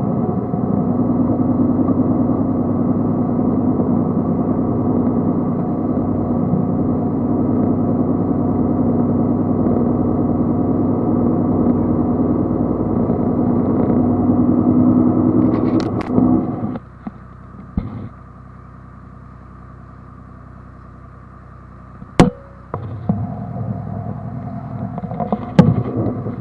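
Speedboat engine running steadily at speed, then dropping off abruptly about two-thirds of the way through as the throttle comes back, with a few sharp knocks, before building up again near the end.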